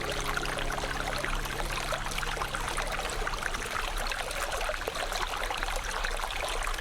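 Shallow river flowing steadily, a continuous trickle with many small splashes and droplet sounds. A few faint held tones fade out in the first couple of seconds.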